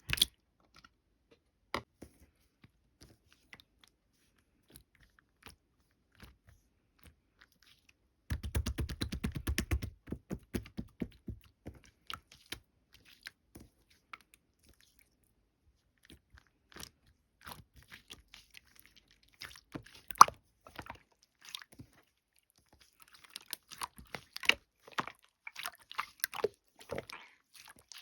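Slime being squished and poked by hand: scattered sticky clicks and crackles, with a fast run of crackling about eight seconds in and denser popping in the last few seconds.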